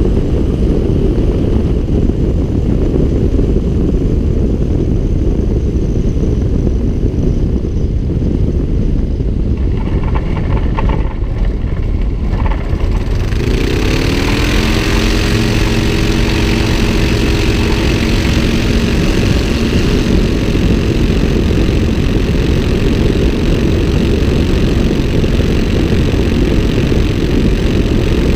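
Light aircraft engine running in flight under heavy wind rush on an outside-mounted camera. About 13 seconds in the engine is throttled up, its pitch rising and then holding steady for several seconds.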